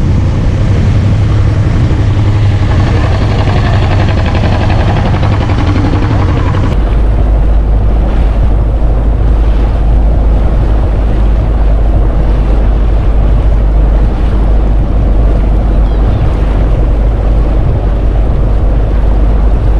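Boat engine running under water splash and hiss. About seven seconds in the sound changes abruptly to heavy wind buffeting the microphone over the engine and water.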